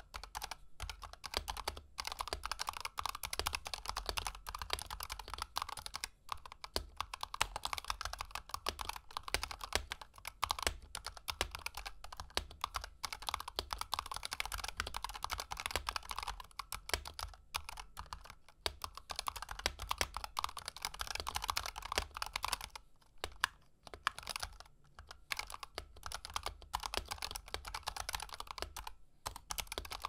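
Fast, continuous typing on a Razer Huntsman Tournament Edition keyboard with linear optical switches: a dense stream of key clacks, broken by a few short pauses in the last third.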